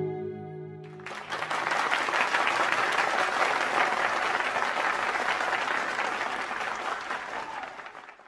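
A song's final held chord dies away, then about a second in an audience breaks into steady clapping that fades out near the end.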